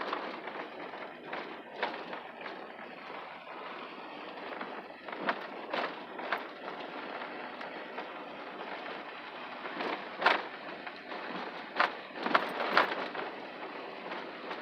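Car driving slowly over a rough, rutted dirt road: steady road noise with irregular knocks and rattles as the tyres drop into holes and bumps, several close together near the end.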